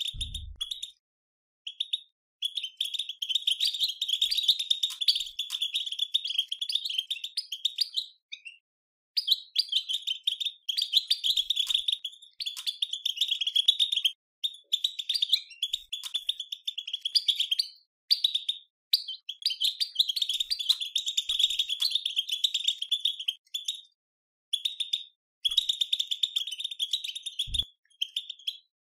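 European goldfinch batbata: a rapid twittering chatter of fast-repeated high notes, given in phrases several seconds long with short pauses between them. It is the kind of twittering that keepers use to stir goldfinches into song.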